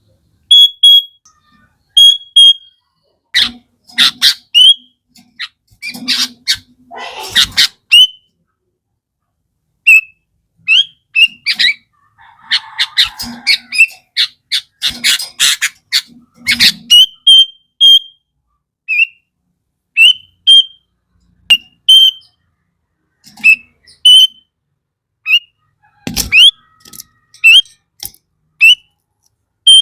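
Sooty-headed bulbul (kutilang) calling: short rising whistled notes about once a second, broken by bursts of harsh, rapid chattering.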